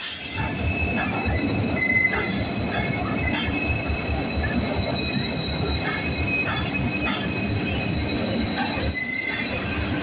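WDG4 diesel-electric locomotives, with EMD 16-cylinder two-stroke engines, running as they roll slowly past, with a steady high-pitched wheel and brake squeal over the low engine rumble and scattered wheel knocks as the train brakes into the station.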